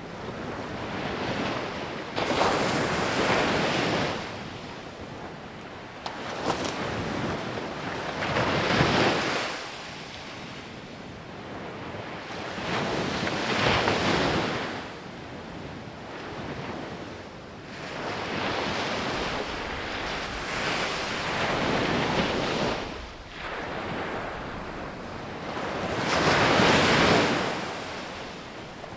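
Sea waves breaking on a sandy beach and washing up the shore, one after another about every five seconds, the loudest near the end.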